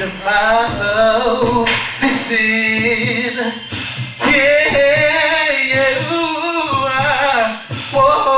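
Male R&B singer singing with music, drawing out long, wavering held notes.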